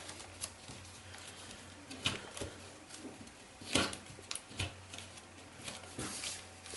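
Kami origami paper rustling and crinkling in short scattered rustles as it is handled and folded, the loudest a little past the middle.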